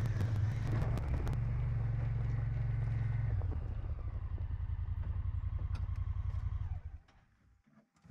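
Side-by-side utility vehicle's engine running as it tows a loaded trailer, with a lower, evenly pulsing idle from about halfway through. The engine shuts off about seven seconds in.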